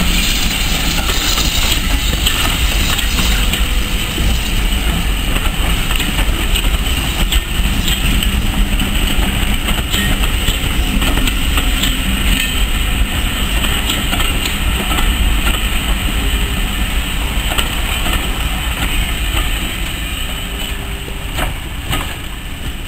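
Steam-hauled train of passenger coaches rolling past, with a steady rumble and occasional clicks of wheels over rail joints. It fades a little near the end as the last coach moves away.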